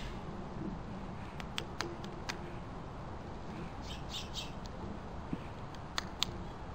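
Northern flicker pecking at a suet cake in a wire-cage feeder: sharp taps, a quick run of them about a second and a half in and two more near the end, with a brief scratchy sound about four seconds in, over a steady background hiss.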